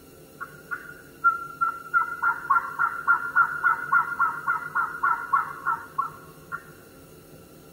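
Electronic game caller playing hen turkey yelps: a few single yelps, then a quick run of about four yelps a second for several seconds that stops about six seconds in.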